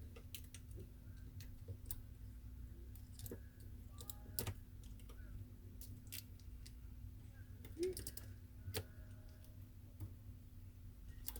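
Scattered small clicks and taps of iPhone X parts and tools being handled during disassembly, a few sharper ones in the middle, over a faint steady low hum.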